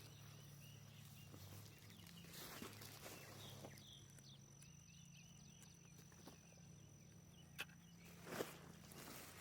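Quiet outdoor garden ambience. A faint steady low hum runs throughout, and small chirps repeat in the middle. Near the end come a few soft knocks, like footsteps or handling in the dirt.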